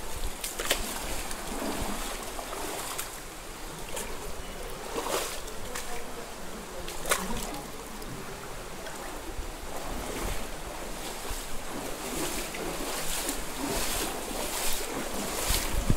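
Shallow mountain stream flowing over stones in a narrow rock gorge, with splashes from feet wading through the water, the splashes growing more frequent near the end.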